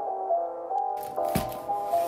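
Soft background music with a simple melody. About a second in, rustling handling noise comes in with a single thump as a cardboard box is handled.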